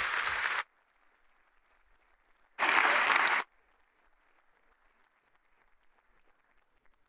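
Audience applause that cuts off abruptly about half a second in. It comes back as a short loud burst of about a second in the middle, and then only faint room noise is left.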